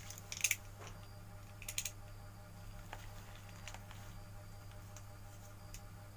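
Light clicks and taps of kitchen items being handled, two small clusters in the first two seconds and a few faint ticks after, over a steady low hum.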